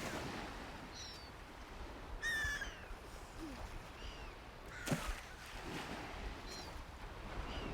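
Birds calling: scattered short, downward-sliding chirps with one louder, harsher call about two seconds in, over a faint outdoor hiss. A sharp click sounds about five seconds in.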